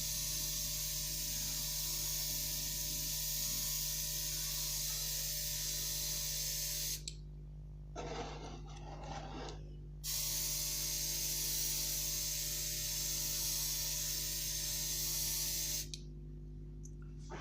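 Battery-operated dual-action airbrush spraying a metallic silver base coat in a steady hiss. It stops about seven seconds in, sprays again for about six seconds, then stops near the end, over a steady low hum.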